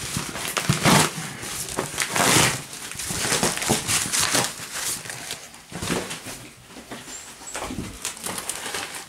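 Cardboard box and plastic wrapping rustling, crinkling and scraping in irregular bursts as a fingerboard stair set is pulled from its packing, loudest about one and two seconds in.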